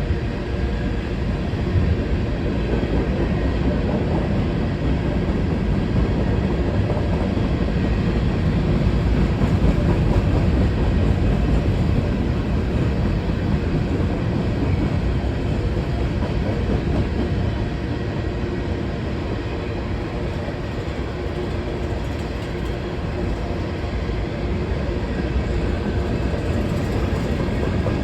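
Freight train of covered hopper cars rolling past, a steady rumble of steel wheels on rail.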